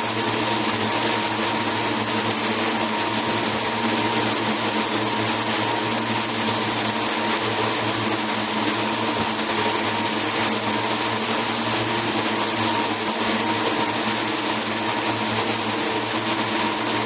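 Rows of textile yarn spinning or winding machines running together, a steady, unchanging drone: a dense hiss over a low hum, with a faint high tone held throughout.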